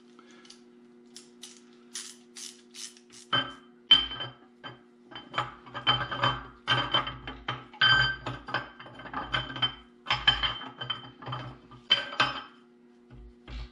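Wrench and loose metal engine parts clinking against one another during the teardown of a GM 3800 V6, as the camshaft retainer and internals come out. A run of light ticks comes first, then from about three seconds in many sharp metallic clinks and knocks with a slight ring. A faint steady hum runs under it all.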